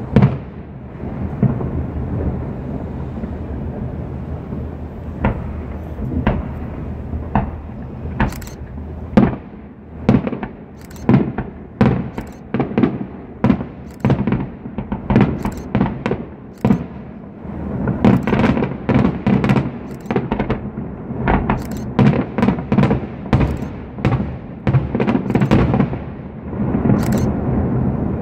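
Aerial fireworks shells bursting: a long run of sharp bangs, often several a second, over a continuous low rumble.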